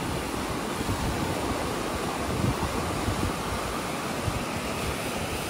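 Floodwater rushing steadily down a concrete river channel, with wind buffeting the microphone in uneven low rumbles.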